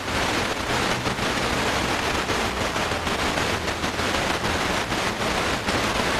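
FM tuner static: a steady hiss from a weak, distant station, the signal barely above the noise.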